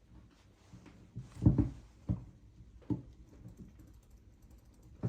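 Short creaks and clicks of a cork being worked out of a wine bottle on a Swiss Army knife corkscrew, the tight cork giving a little at a time. A few separate creaks come spaced under a second apart, with faint ticking between them.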